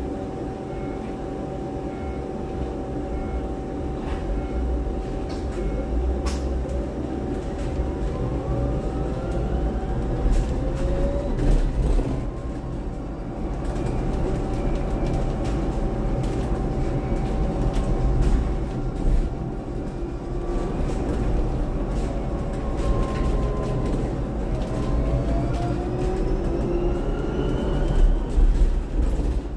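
Upper-deck cabin noise of a Volvo BZL electric double-decker bus on the move: a low road rumble and a steady hum, with the electric drive's whine rising in pitch twice as the bus picks up speed.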